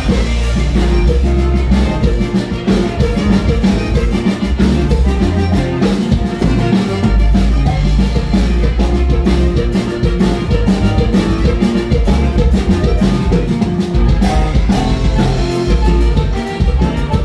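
Live norteño band playing an instrumental passage of a huapango, with a heavy bass line, drums keeping a steady beat and a sustained lead melody over it.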